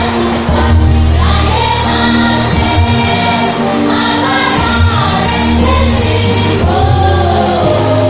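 A youth church choir singing a gospel song in parts, over held bass notes and chords from an electronic keyboard.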